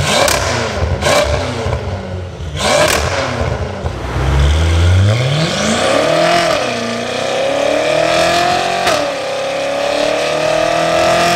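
BMW M6 Gran Coupé's twin-turbo V8 running through an IPE exhaust under load on a chassis dyno. Sharp cracks from the exhaust come in the first three seconds, then the engine pitch climbs from about four seconds in, wavers, dips briefly with another crack about nine seconds in, and rises steadily again.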